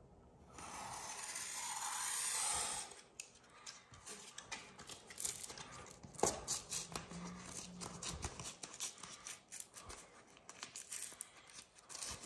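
A utility knife slicing through vinyl wallpaper, a scratchy cutting sound that lasts about two seconds near the start. It is followed by a run of small crackles and clicks as the stiff wallpaper is cut and pulled back at the corner, its backing coming away.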